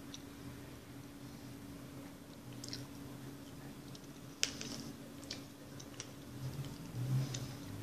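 A person chewing a mouthful of instant noodles, with a few small sharp mouth clicks and smacks, the loudest about halfway through, and a brief low sound near the end.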